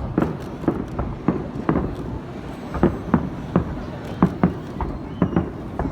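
Fireworks going off in a rapid, irregular string of bangs and pops, about two or three a second.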